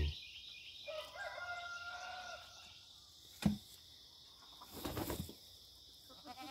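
A rooster crowing faintly: one call of about a second and a half, starting about a second in. A single knock follows, then a brief burst of noise near five seconds.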